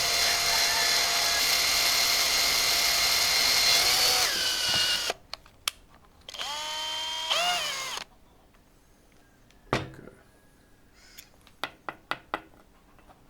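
Electric power drill boring through a thin metal pipe strap: a steady motor whine that winds down about five seconds in, then a second, shorter burst of drilling that rises and falls in pitch. A few light clicks and knocks follow.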